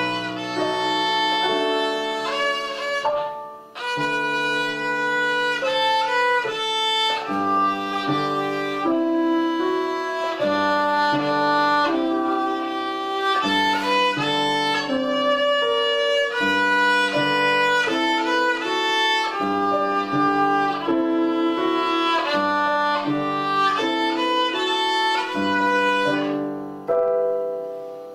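Child-size violin playing a lively melody of short bowed notes, with brief breaks between phrases about three and a half seconds in and again near the end.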